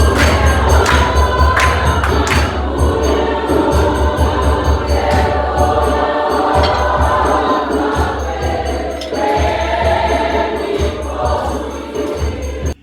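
Gospel choir singing with band accompaniment: a deep pulsing bass and percussion hits under many voices. It cuts off abruptly near the end.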